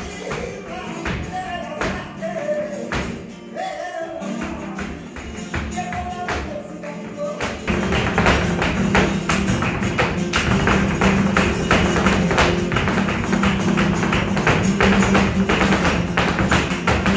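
Live flamenco: two Spanish guitars with hand clapping and a voice singing. About seven and a half seconds in, the music grows louder and busier, with rapid sharp percussive strikes over the strummed guitars.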